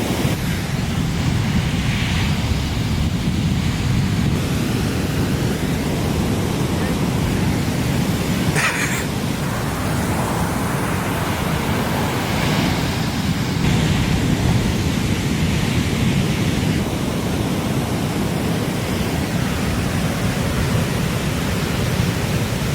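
Surf in the impact zone: waves breaking and whitewater rushing, a loud steady rumble with wind on the microphone, broken by a few brief splash-like bursts, the sharpest about nine seconds in.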